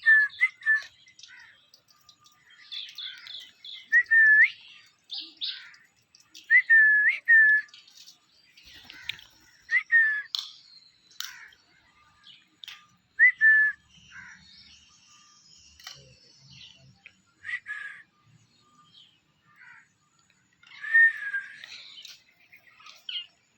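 Pet green parrot whistling: short whistled notes, each with a quick upward flick, in groups of two or three every few seconds, with soft chatter and clicks between.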